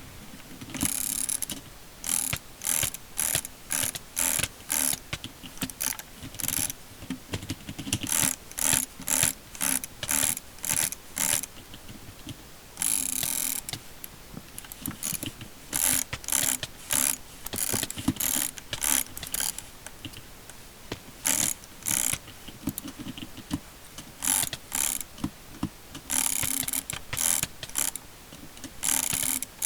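Roccat Kain gaming mouse buttons clicking over and over, short sharp clicks at about two or three a second in runs with brief pauses. A few faster, denser clusters of clicks come about halfway through and again near the end.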